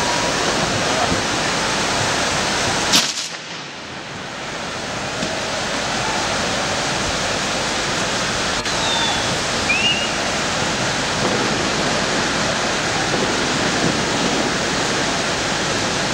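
Firework fountains (gerbs) spraying sparks with a loud, steady hiss. About three seconds in a single sharp crack, after which the hiss drops and then builds back up.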